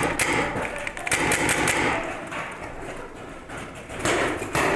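Paintball markers firing a quick run of sharp pops about a second long, and another run near the end, with voices in the background.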